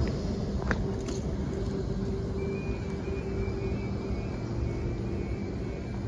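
Oscar H-set electric train standing at the platform, its onboard equipment giving a steady low hum. A faint high whine joins from about two seconds in until near the end, and there are a couple of light clicks about a second in.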